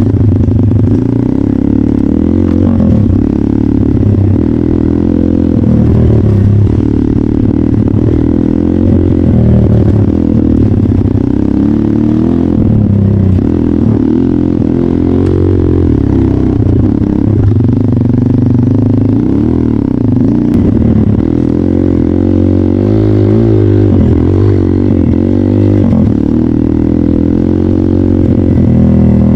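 Trail motorcycle engine running loudly, its pitch rising and falling over and over as the throttle is opened and eased.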